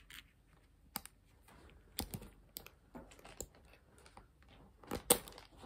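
Small metal clicks and rattles of a silver snap hook on a shoulder strap being worked onto a bag's metal ring, with soft handling of the strap and bag in between; the loudest click comes near the end.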